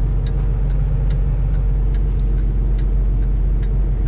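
Semi truck's diesel engine running steadily at low speed, heard from inside the cab, with the indicator flasher clicking evenly about two and a half times a second.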